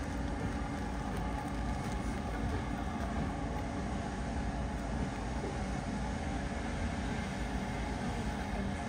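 Steady low rumble of a moving vehicle, with a few faint steady hum tones over it and no sudden events.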